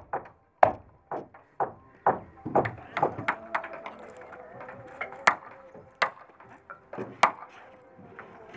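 Hand hammer striking wood, repeatedly and irregularly, as carpenters work the timbers of a wooden boat hull under construction. There is a quick run of blows in the first three seconds or so, then sharper single blows spaced about a second apart.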